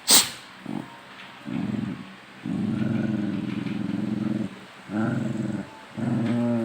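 Dogs play-growling at each other: low, drawn-out growls in several bouts, the longest about two seconds. A sharp click comes just after the start.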